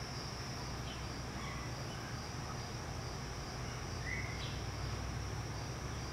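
Steady high-pitched insect trill, crickets, over a low steady hum, with a faint short squeak about four seconds in.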